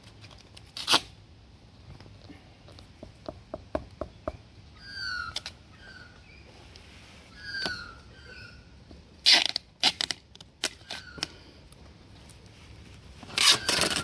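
Sticky tape pulled off the roll and torn, sealing a stingless bee hive box: loud rips about a second in, twice around nine to ten seconds in, and again near the end, with small crackles and clicks between.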